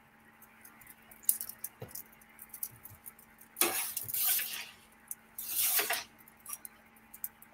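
Metal pizza peel scraping and clicking against the stone floor of a wood-fired oven as a pizza is turned and lifted out: scattered light clicks, with two longer scrapes about halfway through.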